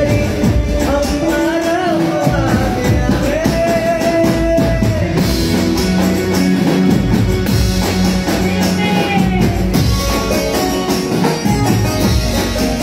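Live band music: an electronic keyboard melody over a drum kit and percussion, with a steady dance beat.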